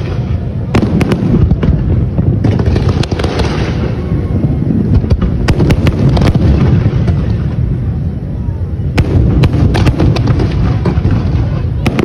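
Fireworks display with aerial shells and ground-launched comets going off together: a continuous low rumble of bursts with many sharp cracks on top, the cracks coming thickest about three quarters of the way through.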